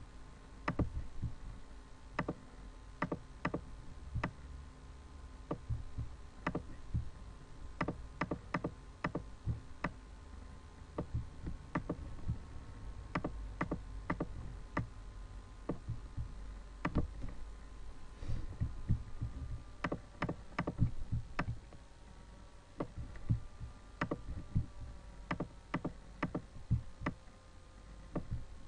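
Computer mouse clicking over and over at an irregular pace, single clicks and quick double clicks, over a low rumble.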